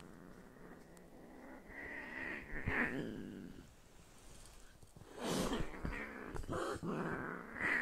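A house cat growling in a drawn-out, wavering yowl as another cat comes up to it: a defensive, fearful warning. About five seconds in it breaks into louder, harsh hisses.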